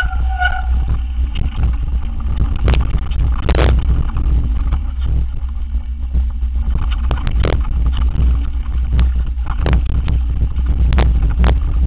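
Mountain bike descending a rocky gravel downhill trail: a steady low rumble of wind on the microphone and tyres rolling on dirt, broken by frequent sharp knocks and rattles as the bike hits rocks and bumps. A brief squeal sounds at the very start.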